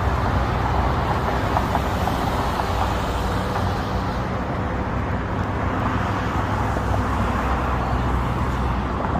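Steady road traffic noise: cars running on the roadway beside the walkway, with a constant low hum underneath.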